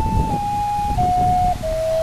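Background music: a slow melody of long held notes on a flute-like instrument, stepping down in pitch. A low rushing noise sits under the first second and a half.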